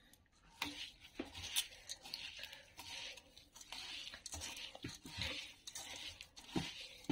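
A hand mixing soaked Gobindobhog rice with ground garam masala in a steel bowl: soft, irregular crunching and rustling of the wet grains, with a few light knocks.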